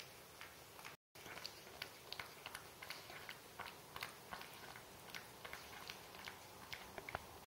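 A cat chewing food from a bowl: quick, irregular little clicks and smacks, several a second. The sound drops out for a moment about a second in.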